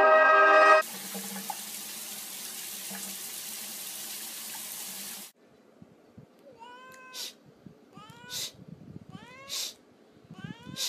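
A steady hiss for about four seconds that cuts off suddenly, then a cat meowing four times, about a second apart.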